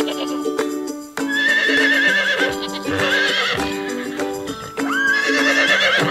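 A horse whinnies three times, each call quavering in pitch, over background music.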